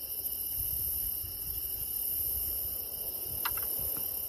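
A summer-night insect chorus of crickets chirring in a steady, high, pulsing trill. A single small click sounds about three and a half seconds in.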